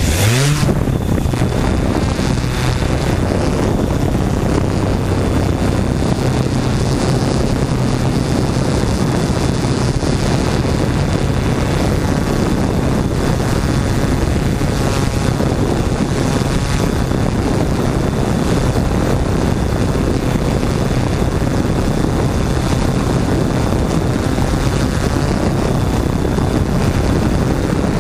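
Quadcopter drone's electric motors and propellers spinning up with a rising whine in the first second, then a steady, loud buzzing hum as the drone lifts off and climbs, heard from the drone's own camera.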